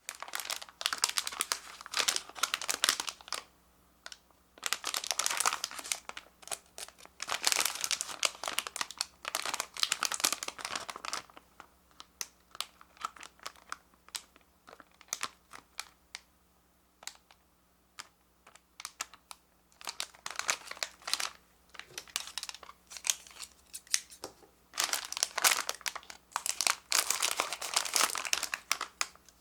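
Plastic and paper packaging of a DIY candy kit crinkling and rustling as it is handled and opened, in irregular bursts with scattered single crackles in between.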